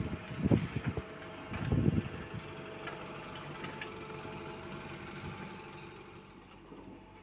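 Diesel engines of a Komatsu PC75US mini excavator and a dump truck running steadily, with two strong bursts of low rumbling in the first two seconds. The sound eases off a little near the end.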